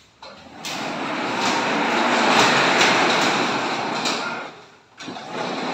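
Teak wood sliding garage door, its folding panels rolling along an overhead steel track as it is pushed open: a continuous rolling rumble that builds, fades and stops about five seconds in, then starts again near the end.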